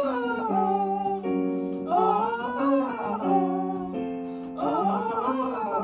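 A singer vocalising a vowel scale exercise, singing short phrases in turn with held accompaniment notes. The instructor's cue is to keep going downward through the scale.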